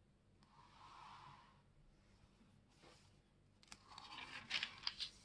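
Thin Bible-paper pages being turned by hand: a soft rustle early, then a louder crinkling riffle of pages with small sharp snaps in the last second and a half.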